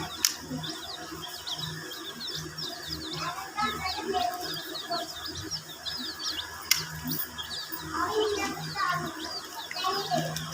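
A group of baby chicks peeping continuously, many short falling chirps overlapping. Two sharp clicks stand out, one near the start and a louder one about two-thirds of the way in.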